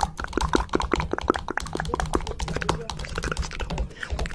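Rapid, irregular clicking, several clicks a second.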